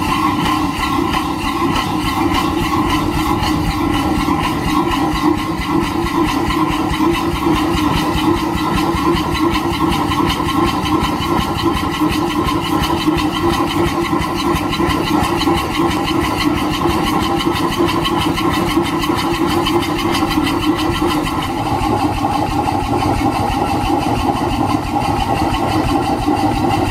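Atlas automatic steam engine running steadily, its exhaust chuffing in a fast, even stream of beats with steam hissing out of the exhaust pipe.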